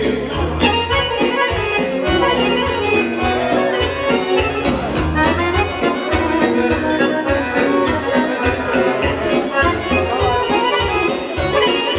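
A folk band playing an instrumental passage between sung verses, led by accordion over a steady, regular bass beat.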